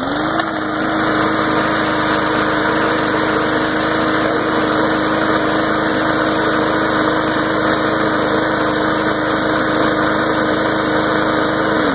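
MTD push mower's Briggs & Stratton single-cylinder four-stroke engine catches on the first pull of the starter cord. It rises quickly to speed, runs steadily and loudly, then winds down as it shuts off near the end.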